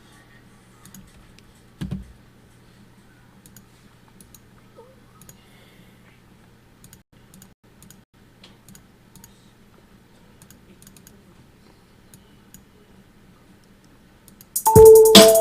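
Soft, scattered clicks of a computer keyboard and mouse as a DAW arrangement is edited, over a steady low hum, with one louder knock about two seconds in. Near the end, beat playback starts suddenly and loud.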